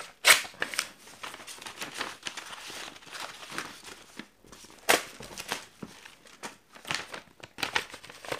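Paper junk mail being torn and crumpled by hand: several sharp rips, loudest just after the start and about five seconds in, between stretches of paper crinkling and rustling.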